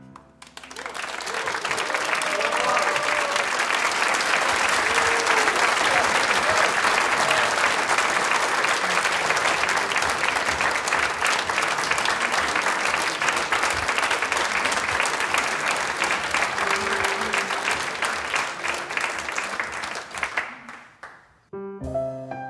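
Audience applauding after a jazz tune, dying away about twenty seconds in, just before the band's piano and instruments start the next number.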